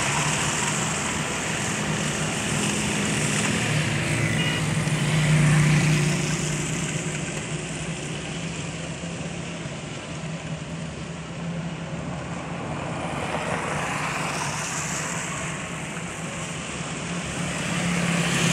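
Street traffic on a wet road: a steady engine hum and the hiss of vehicles going by. It swells as a vehicle passes about five seconds in, and again near the end as a motorcycle cart draws close.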